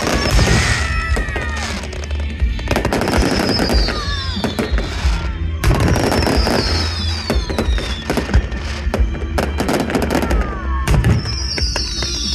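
Fireworks display going off: rapid bangs and crackling bursts over music played with the show, with several falling whistle-like tones.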